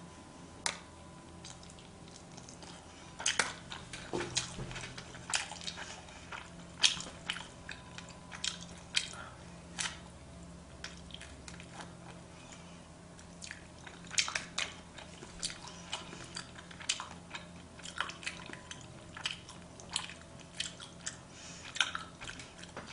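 A person chewing sushi close to the microphone: wet chewing with short sharp mouth clicks and smacks at irregular intervals, one to three a second.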